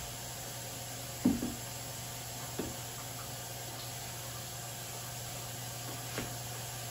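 A few knocks of things being set down or moved on a kitchen counter during clean-up, the loudest about a second in and two lighter ones later, over a steady low hum.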